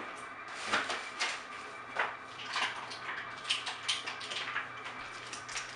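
Kitchen utensils clinking and tapping: a dozen or so irregular light clicks and knocks as spoons and tools are handled and set down.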